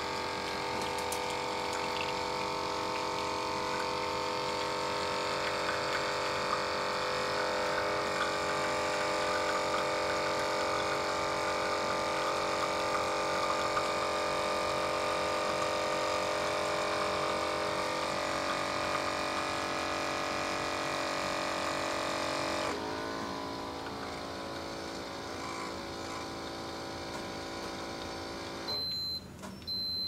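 CISNO portable espresso machine's battery-powered 15-bar pump running with a steady buzzing hum as it pushes hot water through a Nespresso capsule. About two-thirds through, the hum drops lower and quieter. Near the end the machine gives a run of short, high beeps as the shot finishes.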